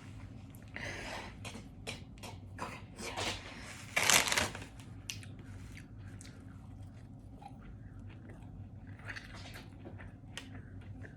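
Close-up chewing and biting of Burger King chicken nuggets: irregular soft crunches and wet mouth clicks. The loudest sound is a short noisy burst about four seconds in.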